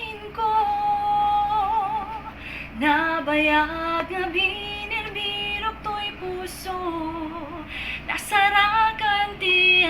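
A woman singing an Ilocano ballad with instrumental backing, holding long notes with a wavering vibrato.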